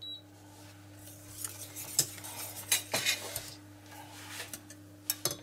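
Steel ladle clinking against a stainless steel pot of hot flan mixture: several separate light metal clinks over a faint steady low hum.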